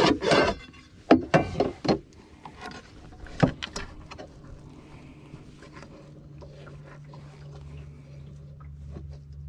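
Sharp knocks and thuds on a bass boat as a just-caught bass is handled and put away: a cluster in the first two seconds and one more about three and a half seconds in. A steady low hum comes in from about six seconds.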